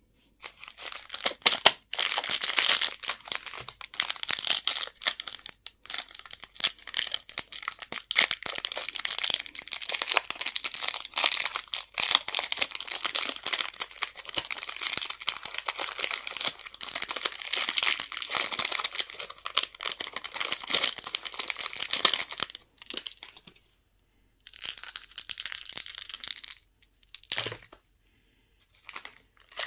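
Crinkly packaging being handled and torn open, with dense rustling and crackling from about half a second in until about 22 s. After that it comes in short bursts separated by silent pauses.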